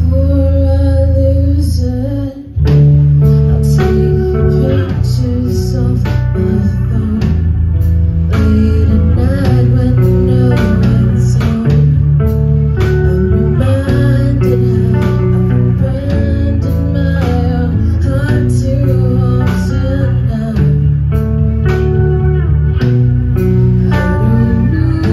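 Live rock band playing: electric guitar, bass guitar and drums, with a voice singing over them. A held chord breaks off for a moment about two seconds in, then the full band comes back in with the drums hitting steadily.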